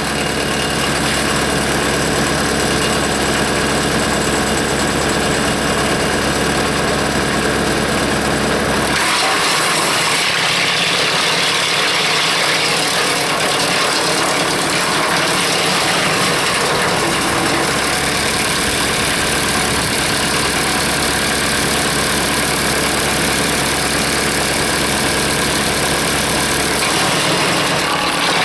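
Hanmey WCX5 PTO-driven wood chipper running on a 30 hp tractor: a loud, steady mechanical din of the rotor and the tractor engine. About nine seconds in the deep hum drops away abruptly and the sound turns rougher, and the deep hum returns near the end.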